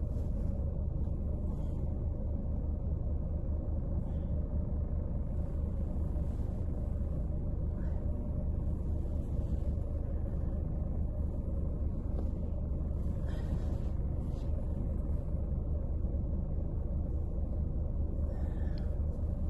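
Renault Trafic campervan's engine idling, a steady low rumble heard from inside the van, left running to warm it on a freezing morning.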